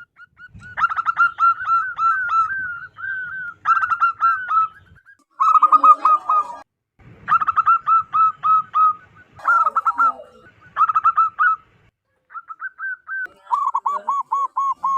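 Zebra dove (perkutut) cooing: repeated phrases of rapid, staccato high-pitched notes, each phrase about a second long, with short pauses between them.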